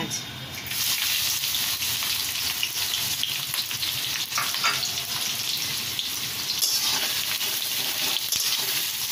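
Sliced onions sizzling in hot oil in a kadai, the hiss jumping up about a second in as they hit the oil and then holding steady, with a spatula stirring through them now and then.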